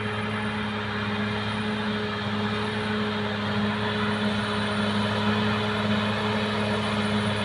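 Caterpillar D6R XL bulldozer's diesel engine running steadily, an even engine drone that holds the same pitch throughout.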